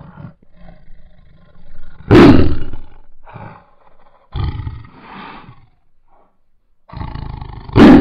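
Female Bengal tiger giving a run of hoarse growls, with two loud, harsh roars, one about two seconds in and one near the end.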